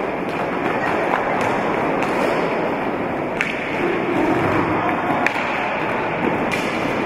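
Roller hockey in play: a steady rolling rumble of roller skates on the hall floor under a steady hall din, with several sharp clacks of sticks striking the hard ball.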